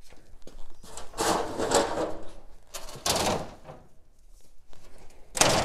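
Metal road signs scraping and clattering against one another as they are flipped through in a packed shelf stack, in three separate sweeps, the last one short and sharp.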